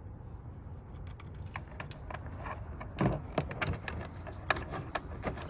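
Scattered small clicks and taps of metal screws and a plastic tail-light housing being handled as Torx screws are fitted, growing busier about a second and a half in, over a low steady hum.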